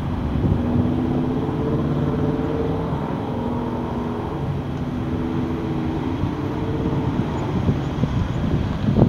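A Boeing 757-200 jet passing overhead, its engines giving a steady rumble with a held hum of tones that fades in and out. Wind buffets the microphone, with a sharper gust near the end.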